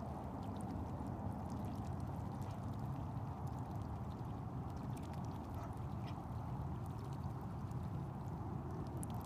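Ducks heard faintly, with small scattered clicks and calls over a steady low rushing noise.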